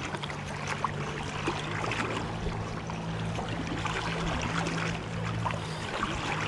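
Running river water with a steady low hum under it and scattered faint ticks; the hum drops away about six seconds in.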